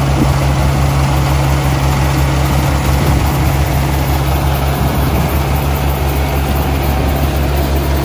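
Yanmar rice combine harvester running while cutting rice, heard at close range: a steady, loud low engine hum with a dense rushing noise from the working machinery over it.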